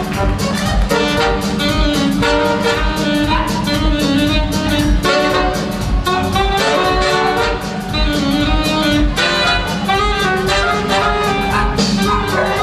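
Lively jazzy band music with brass and a steady drum beat, playing without a break.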